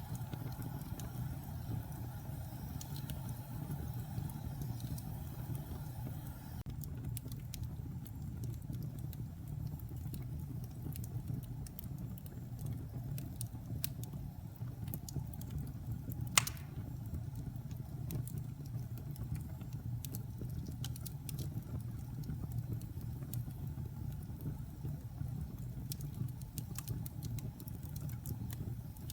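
Logs burning in a fireplace: a steady low rumble of flames with scattered crackles, and one loud pop about halfway through.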